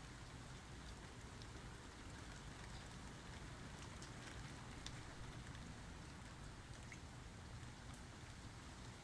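Steady light rain falling, with scattered individual drops ticking on a surface over a low, even rumble.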